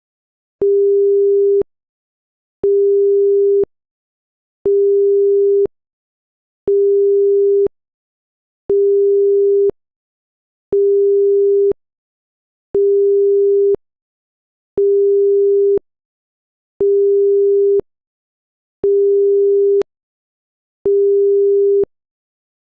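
Electronic beeping: a single steady low-pitched tone, sounding in about one-second beeps every two seconds, eleven times.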